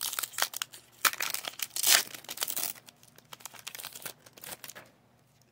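Plastic foil booster-pack wrapper of a Pokémon card pack being torn open and crinkled by hand: a dense run of crackling, loudest about two seconds in, thinning to softer crinkles and stopping about five seconds in.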